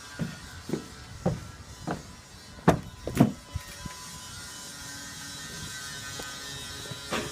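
A series of light knocks and clicks as third-brake-light parts are handled and fitted, about half a second apart at first, with two louder knocks around three seconds in. A faint steady hum lies underneath.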